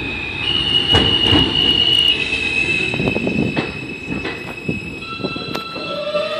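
Alstom R160 subway train pulling into the station and braking, its wheels squealing in high steady tones with knocks as the wheels run over the rail joints. A lower steady tone comes in near the end as the train slows.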